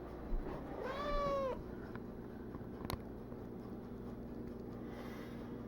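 Domestic cat meowing once, a single drawn-out call about a second in that rises slightly and then falls away, followed by a brief click a couple of seconds later.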